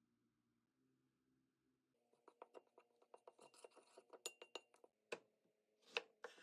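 About two seconds of near silence, then a quick run of small scraping clicks, several a second, with three louder scrapes near the end.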